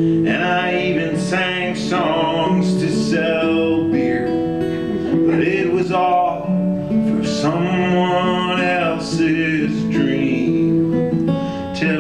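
Acoustic guitar strummed steadily while a man sings a folk song over it.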